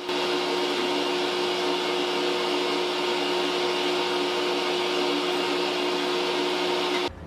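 Electric motor of a woodworking power tool running at a steady speed, a constant hum with a whine over a broad hiss, cutting off suddenly near the end.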